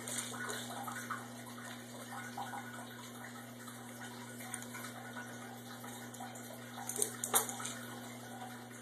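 Steady hiss with a constant low hum, and a few light clicks about seven seconds in.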